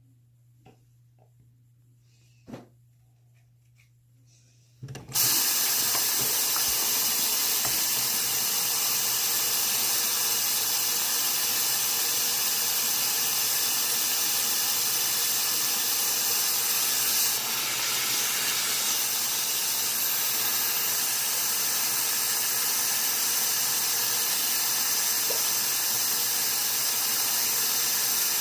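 Near silence with a couple of faint clicks, then about five seconds in a loud, steady rush of running water starts suddenly and keeps going without a break.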